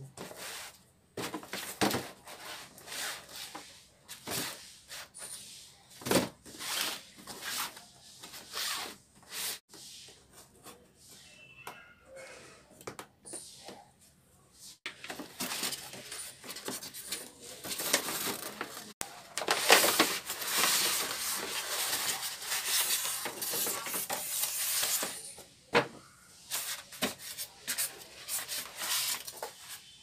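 Cardboard and styrofoam packaging handled by hand: boxes rubbing and scraping as they are slid apart and opened, with scattered sharp knocks and a longer stretch of steady rubbing about two-thirds through.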